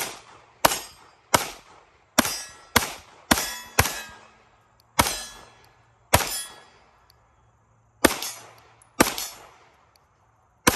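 SAR USA P8L 9mm pistol firing about ten shots, each with a ringing tail. The first six come quickly, about two a second, then the rest are spaced a second or two apart.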